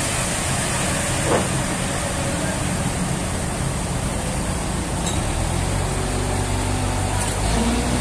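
An engine running steadily, its note shifting about six seconds in, with a single knock about a second in.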